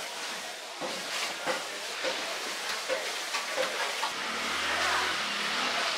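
Butcher's knife working through raw pork on a wooden block: a run of short knocks and scrapes, two or three a second, over the steady hiss of a busy market.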